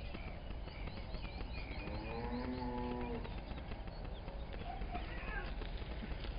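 One long, steady animal call lasting just over a second, about two seconds in, over a run of short high chirps.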